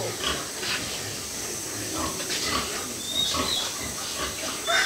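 Scattered short animal grunts and snorts, with a few faint high chirps about three seconds in.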